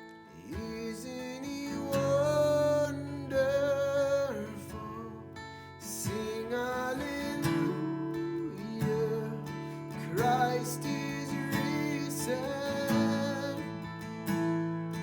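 Worship music: strummed acoustic guitar under a wavering, pitched melody line.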